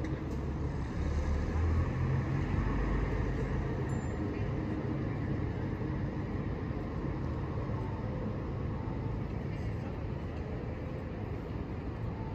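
Street ambience of road traffic: a steady low rumble, louder for the first few seconds and then settling.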